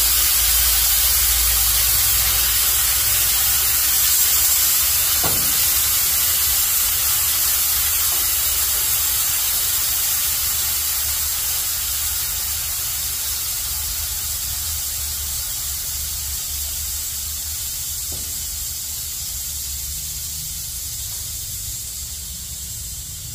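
Air-bag suspension hissing as compressed air rushes through the air-ride valves and bags, a steady hiss that fades slowly as the pressure evens out.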